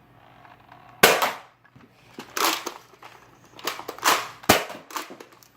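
Toy dart blaster firing: a sharp crack about a second in, followed by several more short pops and clacks over the next few seconds.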